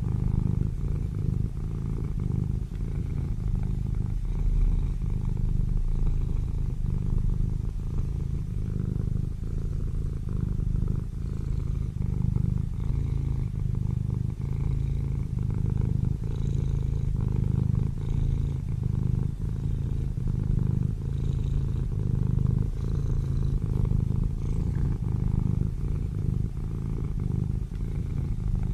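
Sleeping kittens purring, a steady low buzz that carries on without a break.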